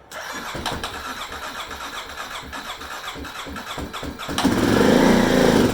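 Kawasaki KLX 250's single-cylinder engine being cranked on the electric starter with a rapid, even rhythm, growing louder for its last second and a half before stopping without settling into an idle. This is a hard start after storage, with raw fuel poured into the carburetor's intake and the enrichment valve open.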